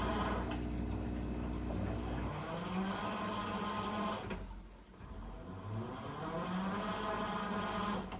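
Teco W1068XS washing machine running a wash cycle: its motor working in repeated strokes that rise in pitch every couple of seconds, with water churning. A steady low drone stops about two seconds in.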